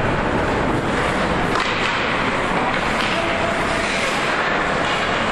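Ice hockey rink ambience: skate blades scraping and carving on the ice, with a few sharp knocks about one and a half and three seconds in.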